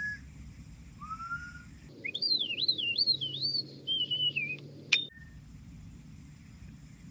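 Whistling: a short rising note, then a high warbling whistle that wavers up and down several times and trails off lower, cut off by a sharp click near the five-second mark.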